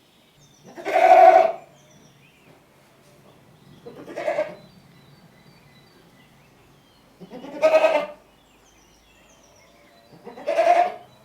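Goat bleating four times, each a short wavering call about half a second to a second long, with pauses of about three seconds between them; the second bleat is quieter.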